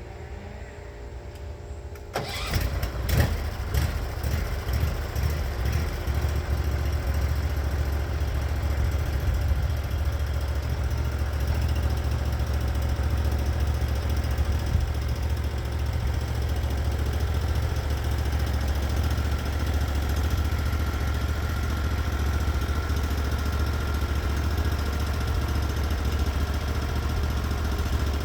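The engine of a Norwood HD36v2 portable bandsaw mill starting up about two seconds in, then running steadily.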